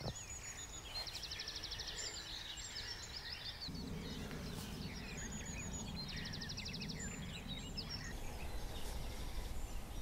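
Small songbirds singing: a scatter of chirps and whistles, with a fast, evenly spaced trill heard twice. A faint low rumble joins about four seconds in.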